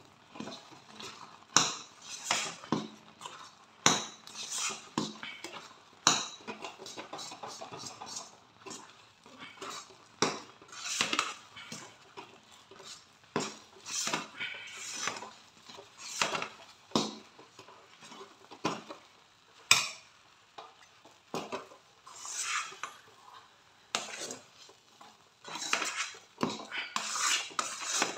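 A steel spoon stirs and mashes rice flour into hot water in a pan as it thickens into dough. The spoon scrapes and knocks against the pan in irregular strokes, with a few sharper knocks.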